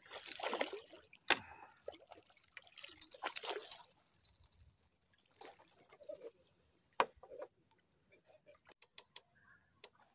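A hooked fish splashing at the water surface as it is hauled up out of the water, with spattering bursts near the start and again about three seconds in. A couple of sharp knocks, one about a second in and one near seven seconds.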